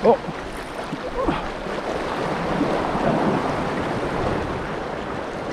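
Small sea waves lapping and washing over the rocks at the water's edge, swelling a few seconds in, with wind buffeting the microphone. A brief loud burst right at the start is the loudest sound.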